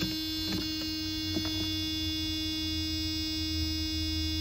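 Dashboard warning buzzer of a 1987 Mercedes 300TD turbodiesel sounding one steady, unbroken buzzing tone as the ignition is switched on. The cold engine is not yet running. A few faint clicks come in the first second and a half.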